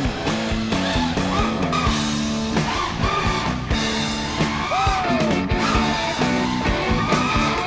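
Rock music soundtrack with guitar over a steady drum beat, with some gliding melodic lines above it.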